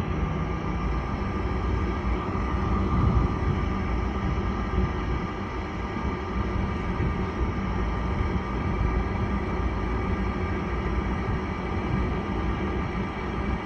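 Furnace draft inducer motor running steadily at start-up, a continuous whirring hum over a low rumble.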